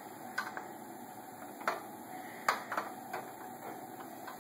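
A baby's plastic push walker clicking and knocking a handful of times as it is pushed over carpet, over a faint steady background hum.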